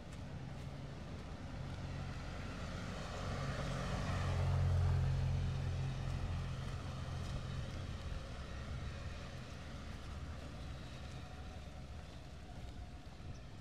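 A motor vehicle passing by: a low engine hum and road-like noise swell to a peak about five seconds in, then fade away slowly.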